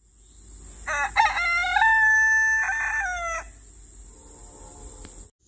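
A rooster crowing once, a cock-a-doodle-doo of about two and a half seconds starting about a second in, with short opening notes, a long held middle note and falling closing notes. Insects keep up a steady high drone underneath.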